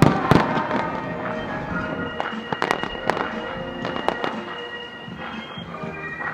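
Fireworks display bursts going off in loud bangs, heaviest at the start and again in clusters in the middle, with music playing alongside.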